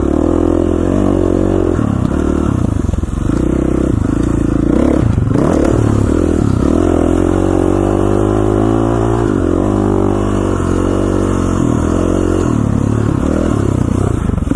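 KTM 450 dirt bike's single-cylinder four-stroke engine under way on a ride, its pitch repeatedly dropping and climbing again as the throttle is worked.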